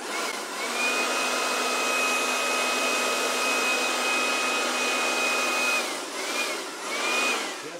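KIMO battery-powered blower's motor spinning up with a rising whine and rushing air, running steadily at full speed for about five seconds, then winding down. Two short squeezes of its variable-speed trigger follow near the end, each a brief rise and fall in pitch.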